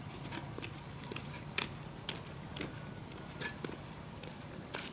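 Footsteps in sandals on a concrete path: irregular light slaps, about one a second. A steady high-pitched whine runs underneath.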